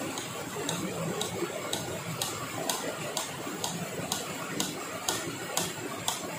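A steady run of sharp, even knocks, about two a second and a dozen in all, starting about a second in, over a constant background hiss.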